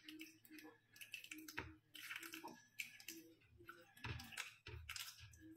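Soy sauce being poured from a plastic bottle into a plastic tub: faint, irregular clicks and taps.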